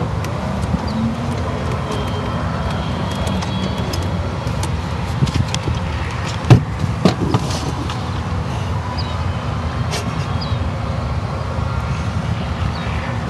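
Golf cart driving across a fairway: a steady low rumble of the cart moving over the grass, with a few sharp knocks and rattles about six and a half to seven seconds in.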